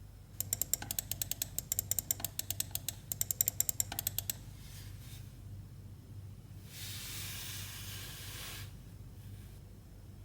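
Rapid plastic clicking from a Razer DeathAdder Essential gaming mouse, about nine clicks a second in two runs over the first few seconds. A soft rustle follows near the end.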